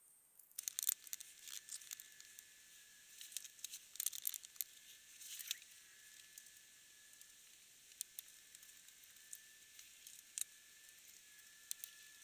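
Small clicks and scratchy rustling from a screwdriver and fingers working on an Asus G50V laptop's copper heatsink and fan assembly. The handling noises come in clusters over the first five or six seconds, then thin to scattered clicks.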